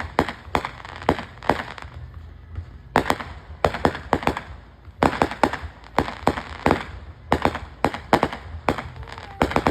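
Consumer fireworks going off in rapid succession: many sharp cracks and bangs, several a second, coming in irregular clusters.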